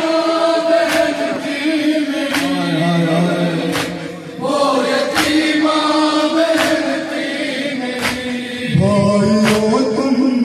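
Group of men chanting an Urdu noha (Shia lament) into a microphone, the lead voice with others joining in unison. Sharp slaps mark the beat roughly once a second, the matam of hands striking chests in time with the lament.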